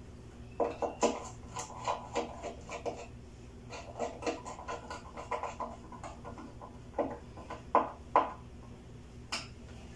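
Irregular small clicks, taps and rustles of hands working an insulated wire onto the end terminal of a fluorescent tube mounted on a board, in clusters over several seconds with the loudest taps near the end.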